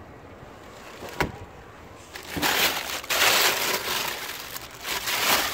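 A single sharp click about a second in, then the paper pages of a Chevy Volt owner's manual rustling loudly as the booklet is handled and leafed through.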